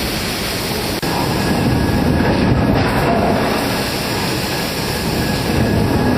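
Steady, loud industrial din of a hot-forging shop floor: dense machinery rumble and noise with no distinct strikes, briefly dipping about a second in.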